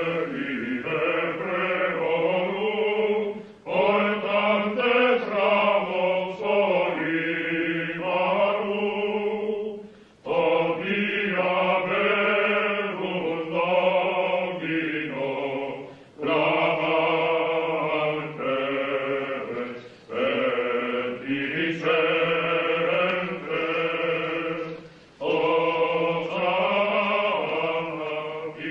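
Men's voices singing plainchant together, in long phrases with short breaks between them.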